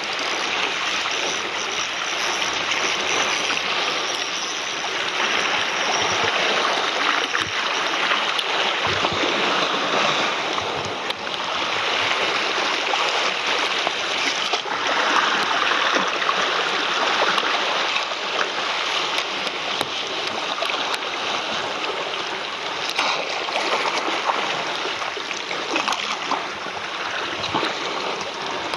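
Steady rushing wash of seawater against shoreline rocks, with scattered small splashes in the second half.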